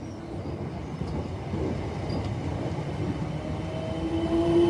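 Electric multiple-unit passenger train running, a low rumble growing steadily louder, with a traction-motor whine that rises and strengthens near the end as the train pulls away under power.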